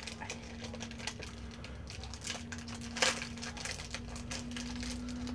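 Rustling and crinkling of packaging with scattered small clicks as items are handled in and out of a cardboard box, one sharper click about three seconds in. A steady low hum runs underneath and grows louder in the second half.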